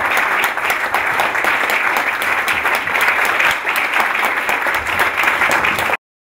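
Audience applauding steadily after an acceptance speech; the clapping cuts off suddenly near the end.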